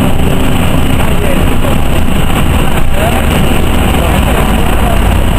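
Steady cabin noise of a NovaBUS RTS city bus under way: a continuous low rumble of engine and road noise with hiss over it.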